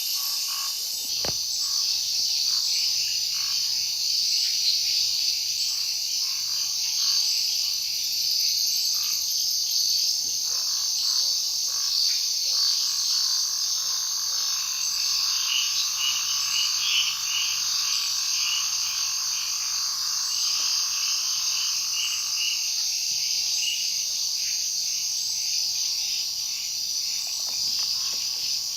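Night chorus of frogs croaking and insects trilling, steady throughout, with rapid pulsed calls under a continuous high buzz; a run of louder chirping comes in about halfway through.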